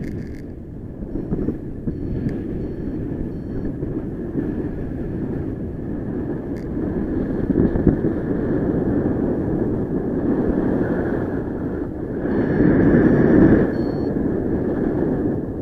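Wind rushing over the microphone in paraglider flight, a steady rush that swells for a couple of seconds near the end. Faint short high beeps sound now and then.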